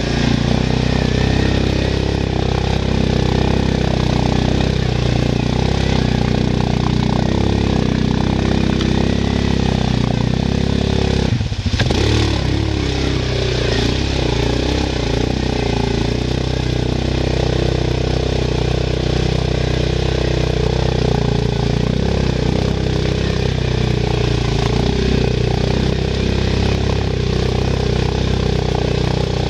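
ATV engine running steadily under load as the quad wades through a water-filled ditch, with water washing against it. The sound briefly drops out about twelve seconds in.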